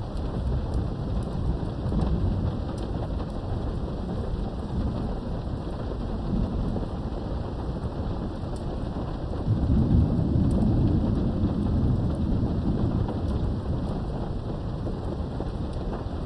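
Steady rain falling with thunder rumbling low throughout, heard from behind a window. A louder roll of thunder swells a little past halfway and slowly fades.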